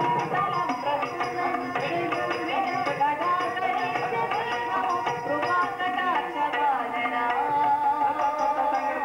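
Carnatic-style classical music: a hand drum plays a busy rhythm under a melodic line with gliding, ornamented notes.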